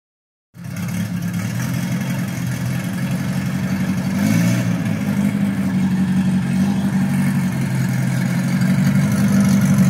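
1960 Morris Minor pickup's engine running at low revs as the truck pulls slowly out under its own power, with a short rise in revs about four seconds in.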